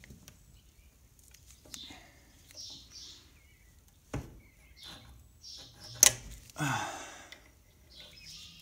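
Small metal scrapes and clicks of a hand tool working at the steel key in the PTO shaft of a 1986 Troy-Bilt Horse tiller. There is a sharp metallic click about six seconds in.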